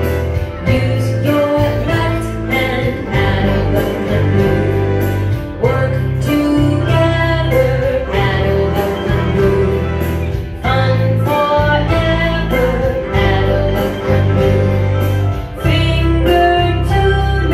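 A children's keyboard ensemble of electronic keyboards and a piano playing a simple tune together, with a voice singing along over a steady bass line.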